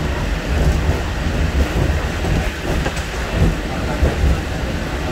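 Hong Kong Peak Tram, a cable-hauled funicular car, running on its track: a steady low rumble with scattered short knocks.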